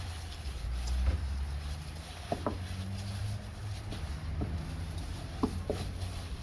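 Raw ground-beef meatloaf mixture being mixed: a few short, sharp sounds over a low steady rumble.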